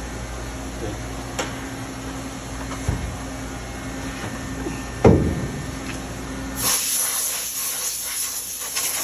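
Workpiece and tooling being handled at a CNC lathe over a steady machine hum: a few light metallic knocks and one loud knock about five seconds in. Near the end a steady hiss starts and continues.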